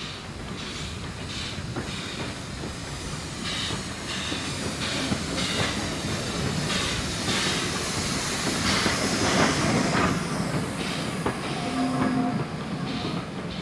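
Steam tank locomotive and its vintage carriages rolling past close by, wheels clacking over the rail joints, growing louder to a peak about two-thirds of the way through as the coaches pass. A brief wheel squeal near the end as the train slows.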